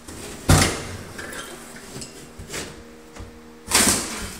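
Long-handled demolition tool striking a wooden door frame: two loud blows about three seconds apart, with a lighter knock between.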